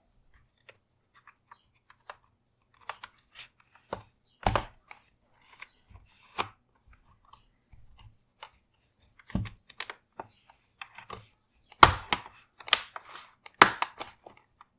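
Plastic retaining clips of a laptop's bottom cover clicking and snapping loose as a pry tool is worked along a tight edge: scattered light clicks and a few sharper snaps, then a quick run of louder snaps near the end.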